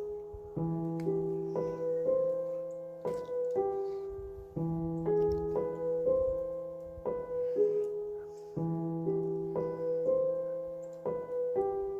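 Background music: a gentle piano piece, melody notes struck about twice a second over a low bass note that changes every four seconds.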